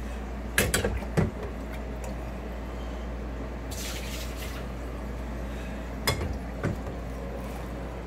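A saucepan clanking against a dishwasher's tub and water splashing as standing water is scooped out by hand: the dishwasher does not drain and backs up with dirty water. Sharp clanks come about half a second to a second in and again around six seconds, with a short splash around four seconds.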